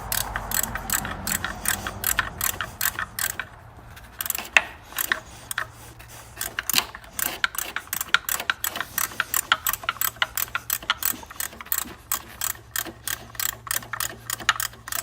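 Hand ratchet wrench clicking rapidly as it turns the 15 mm bolt on a belt tensioner, in quick runs of clicks.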